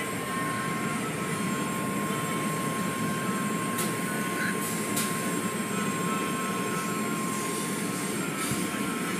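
Automatic car wash heard from inside the car: water spray and spinning cloth brushes washing over the body, with a steady run of machinery noise and a thin steady whine, and a couple of faint clicks midway.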